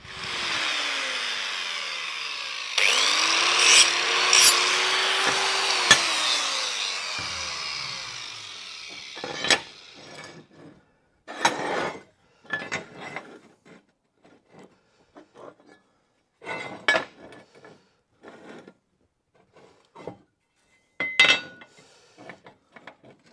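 A power grinder runs against steel angle iron for about nine seconds, its pitch sagging and recovering, then winds down. Scattered clanks and scrapes follow as steel angle pieces are laid out and fitted together into a frame on a steel bench top.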